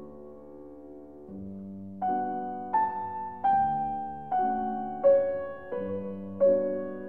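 Background music: a slow piano piece, a held chord fading away, then a melody of single notes struck one after another over low bass notes.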